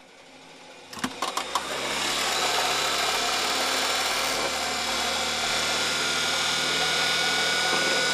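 A few clicks from the homemade wired switch board, then the solar boat's electric outboard motor starts and runs steadily with a faint high whine that creeps up in pitch. The propeller churns and splashes the water.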